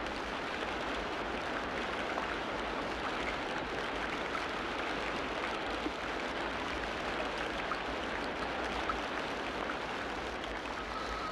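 Steady, even rush of water noise with no rise and fall in loudness.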